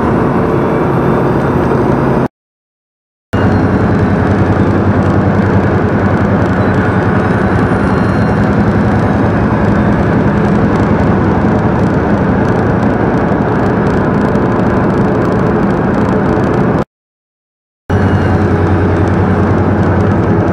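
Big truck's diesel engine droning steadily over road noise, heard from inside the cab. The sound drops out completely twice, for about a second each time.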